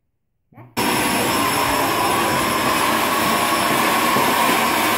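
Vacuum cleaner running loudly and steadily, cutting in suddenly just under a second in after a moment of silence.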